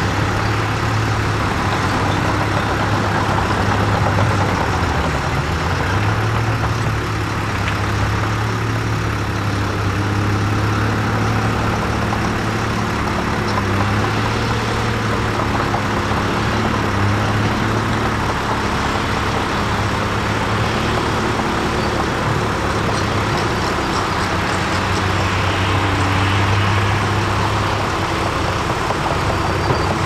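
Cat D6N bulldozer's diesel engine running steadily, a deep, even drone with small wavering shifts in pitch.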